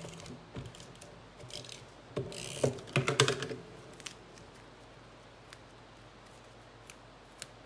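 Card and paper handled by hand on a wooden table: rustling, tapping and clicking, loudest about two to three and a half seconds in, then only a few faint ticks.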